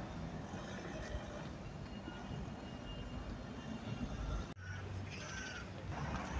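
Urban street traffic: cars and engines passing on the road, a steady rumble, broken by a brief dropout about four and a half seconds in.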